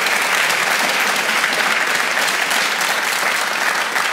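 Studio audience applauding, many people clapping steadily.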